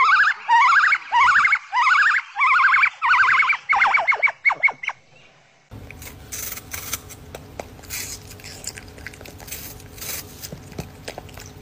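White-cheeked gibbon calling: a run of loud rising whooping notes, about two a second, that speed up into short quick notes and stop about five seconds in. After a cut, a dachshund chews an apple slice with faint crunching and clicks.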